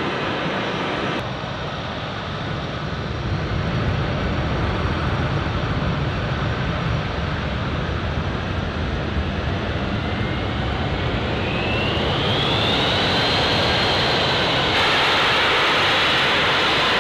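Boeing C-17 Globemaster III's Pratt & Whitney F117 turbofan engines running at takeoff power, a steady heavy jet noise. A high whine rises in pitch about ten seconds in, and the sound changes abruptly twice where the shots are cut together.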